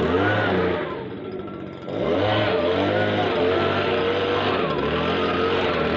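STIHL BG56 leaf blower's two-stroke engine being revved up and down again and again, its pitch rising and falling with each throttle blip, dropping back briefly toward idle about a second in.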